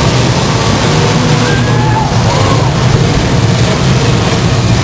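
Engines of many demolition derby cars running and revving together, a loud, steady din of mixed motors.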